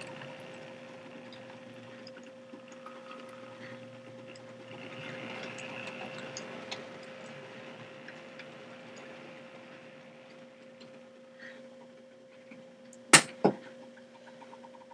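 HO scale model train running on the layout track: a steady electric hum with faint, scattered ticking of the wheels on the rails. About 13 seconds in come two sharp clicks close together, the loudest sounds here.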